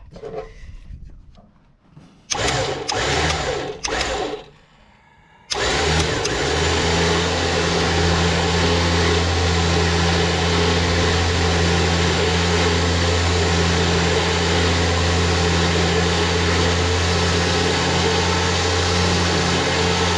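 Electric winch motor running steadily, pulling new synthetic rope in and spooling it onto the drum. A couple of short starts come first, and about five seconds in it starts and keeps running.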